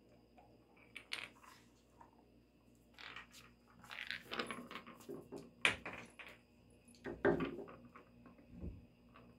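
A dog moving about on a tiled floor: scattered clicks and light metallic clinks from its claws on the tile and the metal rings of its harness, with a dull thump near the end.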